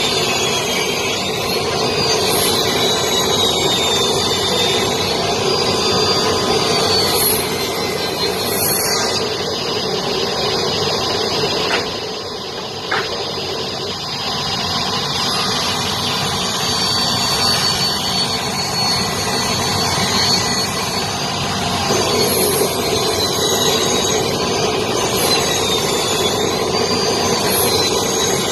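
Table saw running and ripping wooden boards: steady motor and blade noise with a high whine that wavers in pitch as the boards are fed through, briefly quieter about twelve seconds in.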